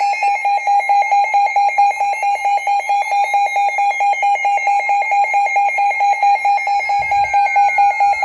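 Several weather radios sounding their test-mode alert alarms at once: a loud, rapidly pulsing tone over steady higher beeps, with a siren tone sweeping slowly up and then back down.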